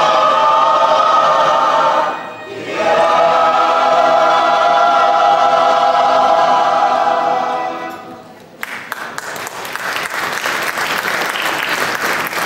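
Mixed choir singing sustained chords, with a short break for breath about two seconds in. The singing ends a little after eight seconds, and audience applause follows.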